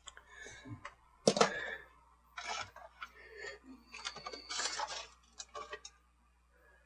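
Plastic toy packaging and small plastic parts being handled: irregular clicks, taps and short crinkling rustles, the loudest a sharp knock about a second in.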